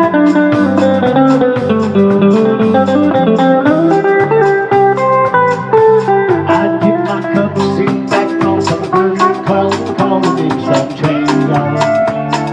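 Live band playing an instrumental break: a guitar lead over a walking bass line and drums keeping time.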